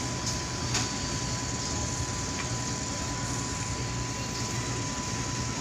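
Steady drone of a passenger ferry's engines heard from the deck, a low pulsing hum under an even hiss, with a faint high tone running through it.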